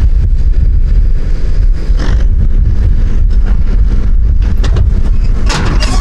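John Deere tractor and John Deere 535 round baler running, a steady low engine hum with a heavy rumble in the bass.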